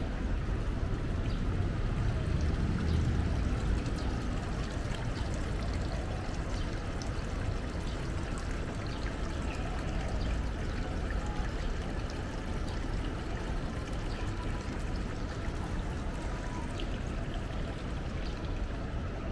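Steady rush of running water, with faint light ticks scattered through it.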